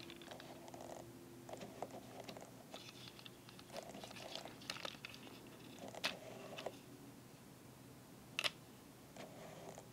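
Small plastic clicks and crackles of a Transformers MP-54 Reboost action figure's joints and panels being moved by hand, with a sharp click about six seconds in and a sharper double click a couple of seconds later.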